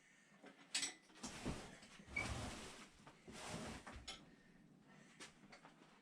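Hands handling tools and engine parts: a few sharp clicks and knocks, with stretches of scraping and rustling between about one and four seconds in.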